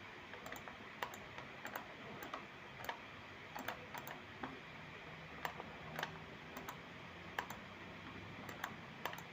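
Irregular single clicks of a computer mouse and keyboard, about a dozen spread a half second to a second apart.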